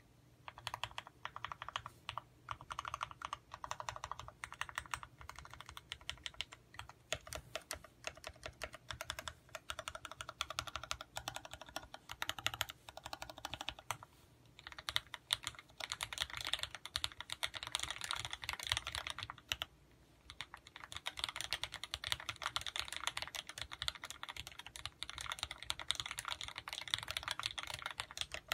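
Fast typing on a custom mechanical keyboard with vintage Cherry MX Black linear switches on 65 g springs: a dense stream of key clacks, with two brief pauses about halfway and about two-thirds through.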